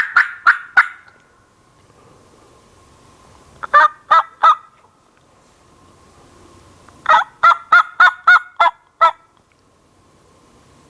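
Turkey yelping in three runs of sharp, evenly spaced notes: about four notes at the start, four more a few seconds later, and a longer run of about seven or eight near the end.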